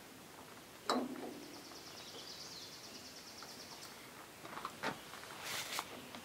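Metal parts of a garden tractor's PTO clutch linkage being handled and fitted. A sharp metallic clink rings briefly about a second in, and clicks and rustling clatter come near the end. A fast, high, evenly pulsed trill sounds in the background for a couple of seconds in between.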